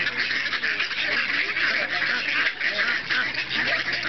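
A flock of mallards quacking and calling over one another, a steady dense chatter of many birds.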